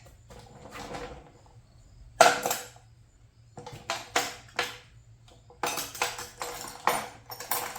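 Metal hand tools clinking and clattering against each other as they are handled, in a run of short sharp clanks, the loudest about two seconds in and a quick cluster near the end.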